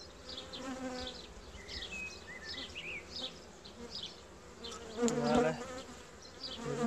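Buckfast honeybees buzzing around an open hive under inspection: a dense, steady hum of many bees, swelling briefly about five seconds in.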